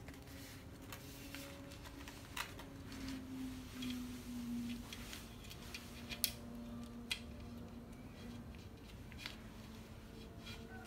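Paper banknotes rustling and small sharp taps and clicks as rolled notes are pushed by hand into the slot of a plastic piggy bank, over a steady low hum.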